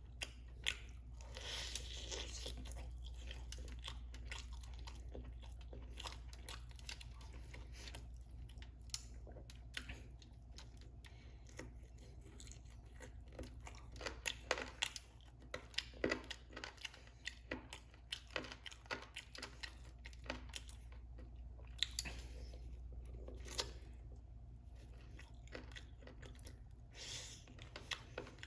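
Close-miked chewing and crunching of crispy fried chicken wings, with sharp crunches scattered all through, over a low steady hum.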